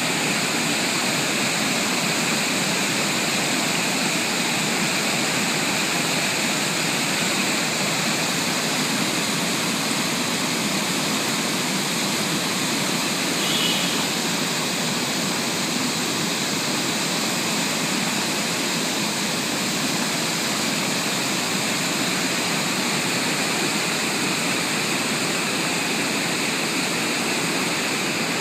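Water pouring over a weir: a steady, unbroken rushing. A short high-pitched sound comes through about halfway.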